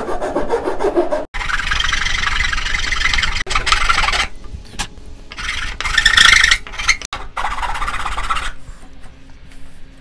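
Four-in-1 wood rasp filing a notch in a wooden beam: quick back-and-forth scraping strokes in three spells, stopping abruptly a few times and ending shortly before the end, smoothing the notch's sawn face.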